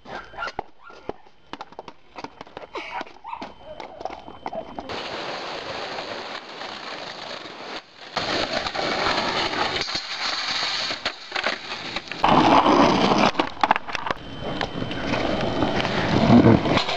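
Skateboard rolling on pavement: scattered knocks and clacks for the first few seconds, then a steady rolling noise that grows louder toward the end.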